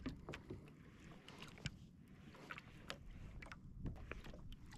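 Faint water lapping against a fishing kayak's hull, with scattered light clicks and taps at irregular intervals.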